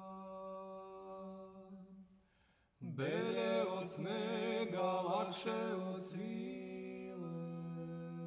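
Male voices chanting a cappella: a low held drone, a brief lull, then from about three seconds in a louder melodic line moving in pitch above it. Near the end the drone holds on alone.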